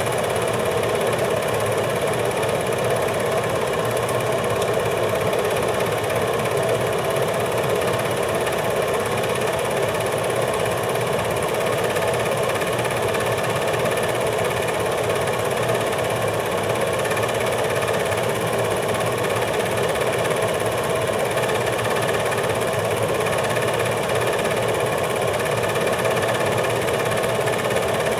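8mm film projector running steadily, its mechanism making a constant sound that does not change.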